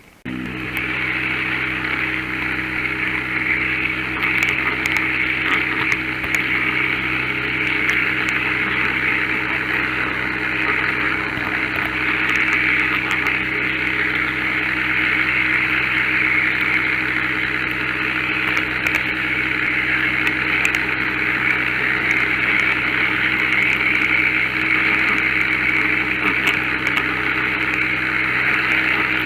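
Model train running on a layout: a steady whir of a small electric motor and wheels on track, over a constant low hum.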